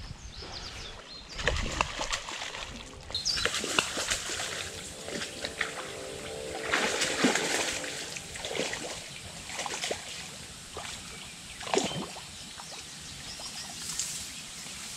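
A hooked blue catfish thrashing at the surface as it is hauled in to the bank, making irregular splashes and sloshing in the river water.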